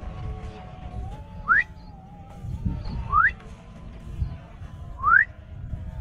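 Three short whistles, each sliding quickly upward, about one and a half to two seconds apart, over the low noise of walking along a rice-field path.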